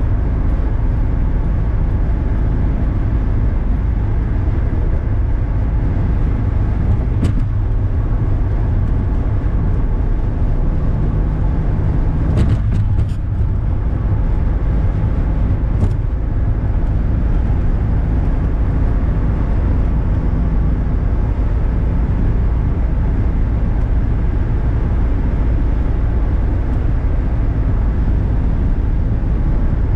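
Inside the cabin of a 1978 Datsun Z-car cruising at highway speed: the steady drone of its straight-six engine under tyre and wind noise. A few light clicks come about 7, 13 and 16 seconds in.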